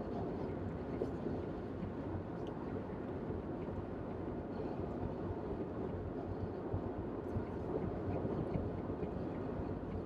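Steady road noise inside a moving car's cabin: an even rumble of tyres and engine.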